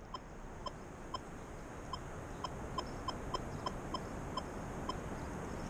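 Minelab Equinox 600 metal detector giving short, faint, high blips about twice a second, irregularly spaced, over a steady background hiss.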